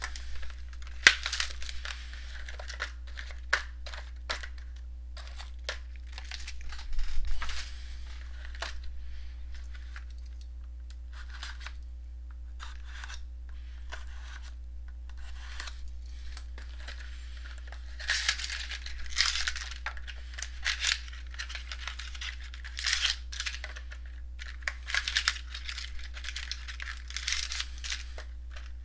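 Wrapping being torn and crinkled as a sealed box of baseball cards is opened. It comes in irregular bursts, sparse at first and busy through the last third, over a steady low hum.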